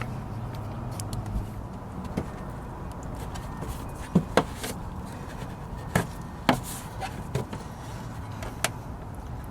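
Scattered light plastic clicks and knocks as a side marker bulb socket is handled and twisted back into its lamp housing, over a steady low hum.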